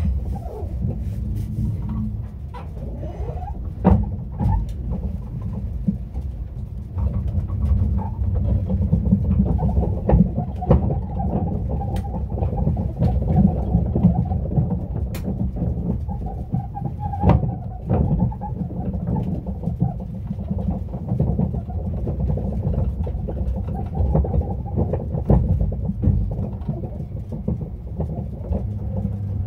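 Fujikyu Railway train heard from inside the passenger car as it runs into the station: a steady low rumble of wheels and running gear, with scattered sharp clicks and knocks from the wheels crossing rail joints and points.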